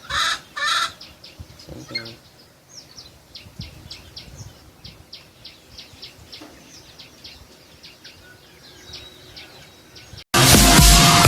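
A chicken clucking loudly at first, then faint short high bird chirps repeating a few times a second. Loud electronic music starts suddenly near the end.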